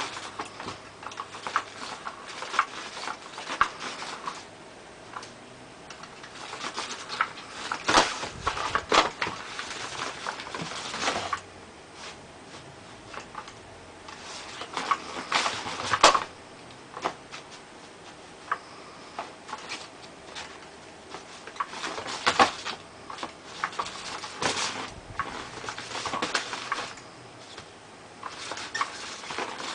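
A kitten scrabbling and batting at a toy: irregular pattering, scuffs and light clicks, with a few louder knocks.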